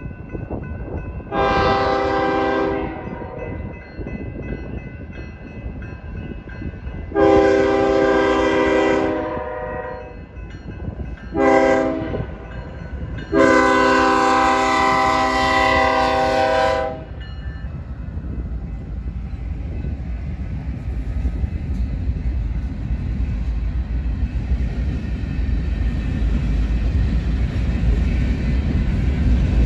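Locomotive horn of a BNSF GE ES44AC sounding the grade-crossing signal: two long blasts, a short one, then a final long blast of about three and a half seconds. After it the empty coal train passes, a low rumble of locomotives and steel cars on the rails that grows louder toward the end.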